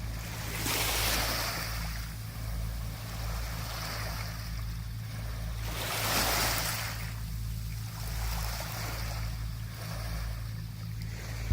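Small sea waves washing onto the beach, two swells about five seconds apart, over a steady low hum.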